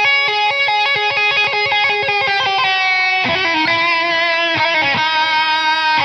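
Music: the instrumental opening of a song, a melody of held notes led by electric guitar.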